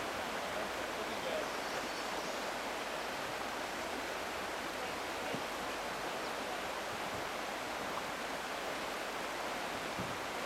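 Shallow Class II river rapids: water rushing steadily over and between rocks.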